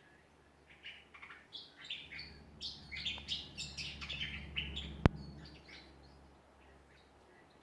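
Backyard songbirds singing, a rapid run of short chirping notes that builds and then fades away about six seconds in. A single sharp click about five seconds in.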